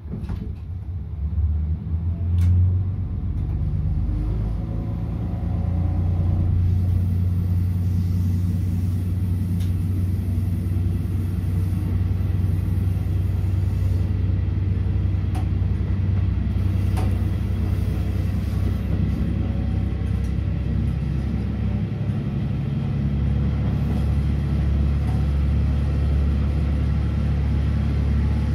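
Diesel railcar engine running under power, heard from the driver's cab as the train works up the switchback grade. It is a steady low drone that grows louder about six seconds in and changes note about twenty-two seconds in, with a few sharp clicks from the running gear.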